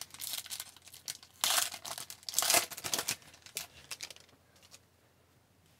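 A hockey card pack's wrapper being torn open and crinkled by hand, in a few irregular bursts of rustling, the loudest about one and a half and two and a half seconds in, stopping about four seconds in.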